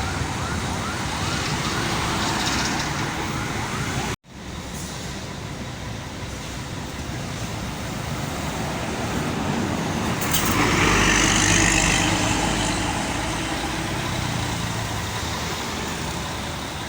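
Roadside traffic noise from passing motor vehicles, with one vehicle passing close and loudest about eleven seconds in. The sound cuts out abruptly for a moment about four seconds in.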